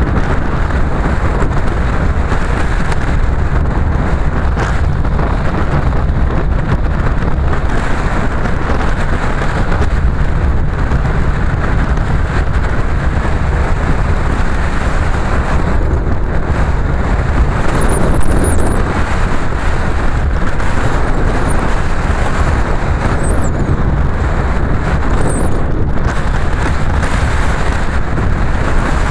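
Car driving steadily along a road: continuous engine and tyre noise with a deep rumble, heard from a camera riding on the car.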